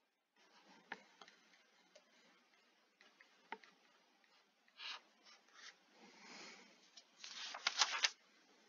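Faint stylus writing on a tablet screen: a few sharp taps, then scratchy strokes that grow busiest in the last two seconds as an answer is written out and boxed.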